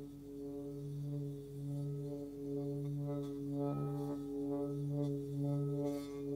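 Hand-forged Nepalese singing bowl, 23.5 cm across and tuned to 143 Hz (D), sung by a suede-wrapped wooden stick rubbed around its rim. It gives a steady low hum with a stack of overtones that pulses about twice a second.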